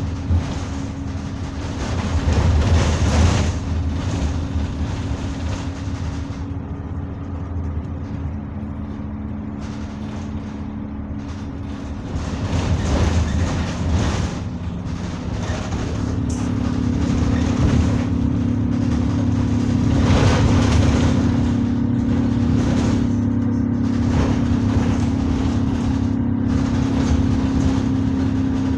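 Single-deck bus's diesel engine and drivetrain heard from the rear seats while it drives, a steady hum and whine that swells louder several times as the bus accelerates, with road noise and a single click about half a second in.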